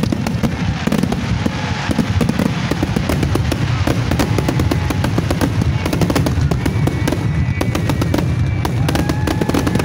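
Aerial firework shells bursting in a rapid, unbroken barrage: dense booms and crackles over a continuous low rumble.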